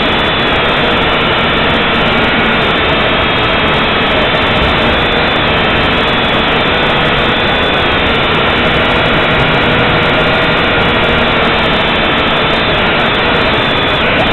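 JJRC H8 quadcopter's small electric motors and propellers whirring steadily, heard loud and close from the drone's own onboard camera, with a whine that wavers slightly in pitch as the throttle changes.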